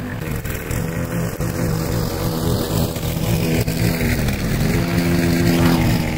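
Briggs & Stratton single-cylinder engine on a walk-behind rotary lawn mower, running steadily under load while cutting grass.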